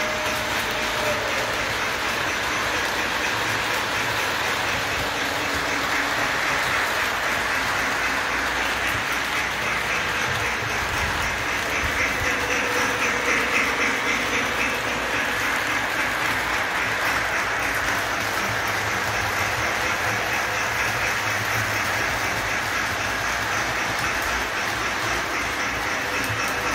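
Model steam locomotive and its freight cars running on three-rail track: a steady rolling rumble of wheels and motor, a little louder for a few seconds about halfway through.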